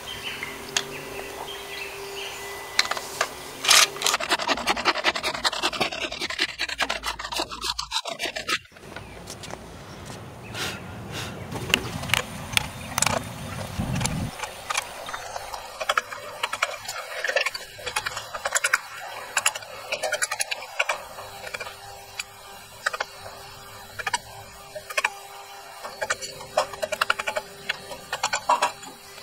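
Handwork on a wooden drill handle clamped in a bench vise: about four seconds in, a run of fast, loud back-and-forth strokes from a bow drill. After that, intermittent scraping and tapping of a thin metal rod inside the handle's metal ferrule.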